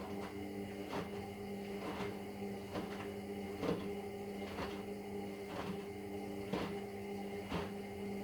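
Indesit EWD71452 washing machine tumbling its drum during the wash, its brushed Nidec motor giving a steady hum with a whine, and a soft knock about once a second as the drum turns.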